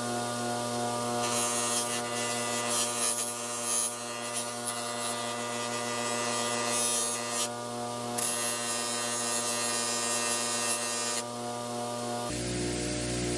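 Electric buffing wheel running with a steady motor hum, and a hiss that rises and falls as polishing compound and a steel hammer head are pressed against the spinning cloth wheel. The sound changes abruptly near the end.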